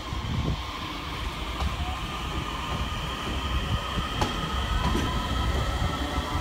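DART electric commuter train moving past the platform: a low rumble of wheels on rails with a steady electric whine, and a couple of sharp wheel clicks over rail joints about four and five seconds in.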